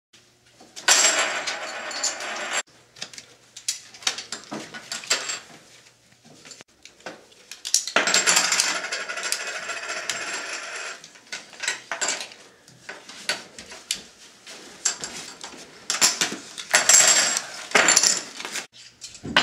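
Poker chips clattering and clicking together as they are picked up and piled, with three longer runs of dense rattling, about a second in, about eight seconds in and near the end.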